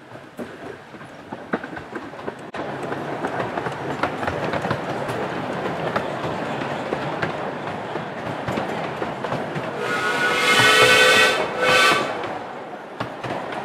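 A 12¼ inch gauge miniature steam train, 2-6-2T locomotive and carriages, running past with its wheels clicking over the rail joints. Near the end the locomotive's whistle sounds twice, one longer blast and one short one.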